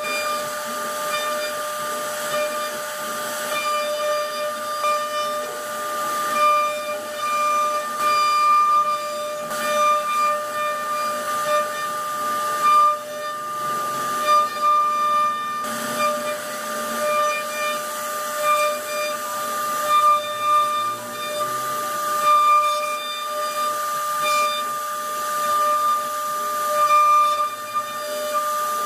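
CNC router spindle running with a steady high-pitched whine over a hiss, its bit cutting a relief pattern into a wooden door panel; the level wavers slightly as the cut goes on.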